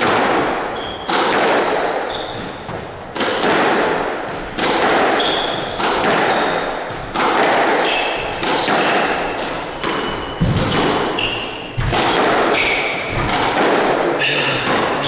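Squash rally: the ball smacked by racquets and thudding off the court walls about once a second, each hit ringing on in the reverberant court. Short high squeaks from shoes on the hardwood floor are heard between the hits.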